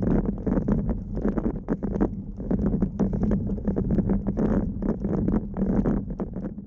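Riding noise picked up by a camera mounted on a road bicycle: a steady rumble of tyres and wind, with many quick rattling knocks as the bike goes over rough tarmac. It fades out near the end.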